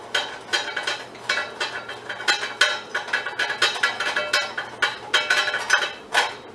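Metal light-fixture housings being taken apart by hand: repeated sharp metallic clinks and rattles, several a second, some with a brief ring.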